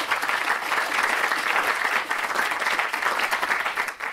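Audience applauding: many people clapping together in a dense, steady patter that begins to fade near the end.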